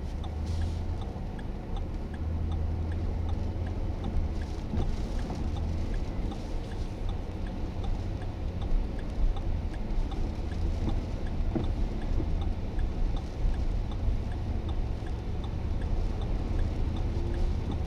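Steady low rumble of storm wind and vehicle noise heard from inside a vehicle, with a faint regular ticking running through it.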